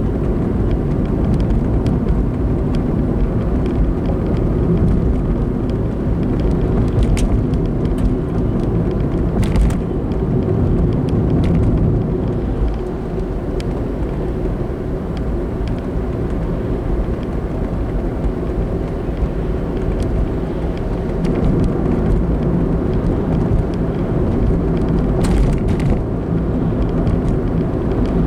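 Car driving along a road: a steady low rumble of tyres and engine, with a few brief faint knocks.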